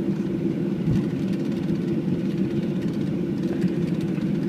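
Steady low rumble inside the cabin of a Boeing 737-800 as it taxis after landing.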